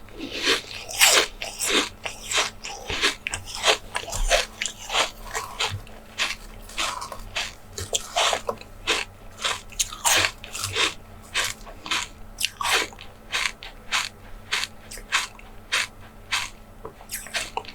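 Close-miked eating: a steady run of crisp, crunchy bites and chewing, about two to three crunches a second.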